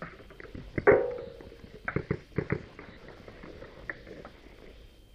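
Sharp pops and impacts of paintball play, the loudest about a second in with a short ringing tail, followed by a scatter of quicker pops.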